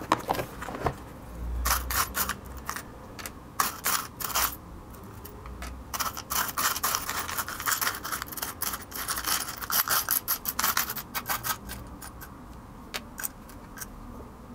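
Small metal screws clicking and rattling in quick clusters as they are picked through by hand in search of M4 screws.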